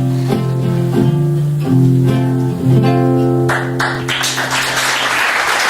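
Acoustic guitar playing the closing notes of a song, the last chord left ringing, as audience applause breaks out about three and a half seconds in.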